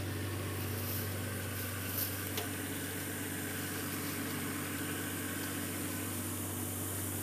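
Diesel engine of tracked logging machinery running steadily at constant speed, a low even drone, with two small clicks about two seconds in.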